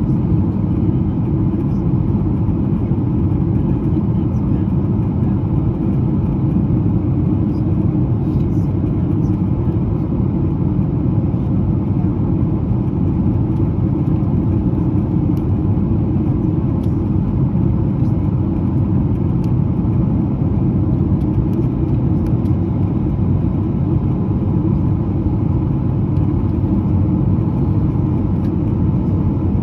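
Steady low rumble of a Boeing 737-900 airliner in flight on its approach: CFM56-7B engine drone and airflow noise, holding an even level throughout.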